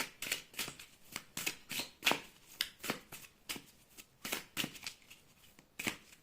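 Tarot cards being shuffled by hand: a quick, uneven run of short papery slaps, about three a second, stopping near the end.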